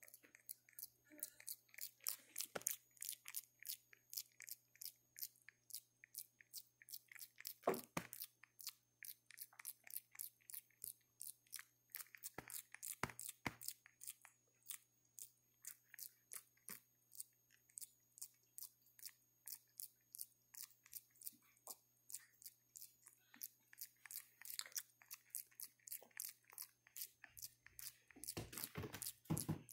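Macaque's mouth noises close to the microphone: a quick, irregular run of crunchy, chewing-like clicks, about three or four a second, with one louder knock about 8 seconds in and a denser flurry near the end.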